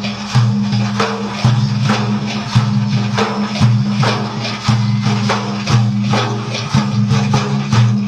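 Instrumental introduction to a madih praise song: hand percussion with a tambourine-like jingle strikes about twice a second over a steady, sustained low drone, before the voice comes in.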